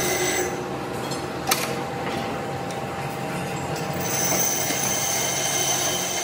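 Heavy factory machinery running steadily with a faint high whine that drops away about half a second in and comes back about four seconds in. A single sharp knock sounds about a second and a half in.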